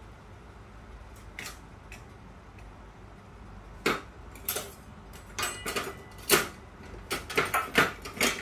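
Glass-lidded pot of apple pie filling simmering on the stove, the lid and pot giving sharp, irregular clicks and taps that start about halfway through and come faster near the end.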